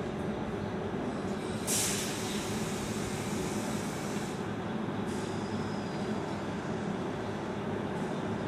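SBB double-deck electric passenger train moving along the platform tracks: a steady rail rumble with a low hum, broken by two sudden bursts of hiss, about two seconds in and again about five seconds in, the first the loudest.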